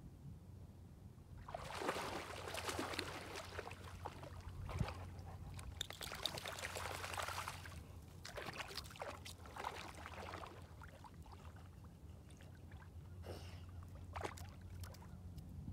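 Water splashing and sloshing in irregular bursts as a Rottweiler wades and paddles through shallow lake water, with a few short splashes near the end. A steady low hum runs underneath.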